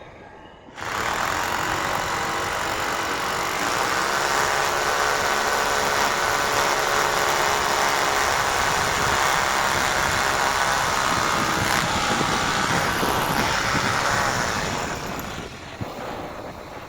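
A motor running steadily, starting suddenly about a second in and dying away near the end.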